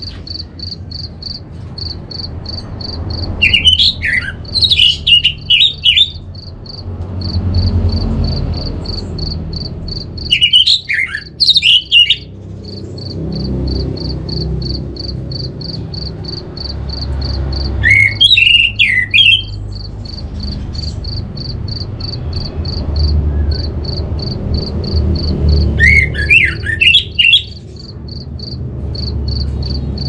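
Orange-headed thrush singing: four bursts of quick, varied whistled phrases, each about two seconds long, roughly every seven or eight seconds, over a steady fast-pulsed high chirping and a low background rumble.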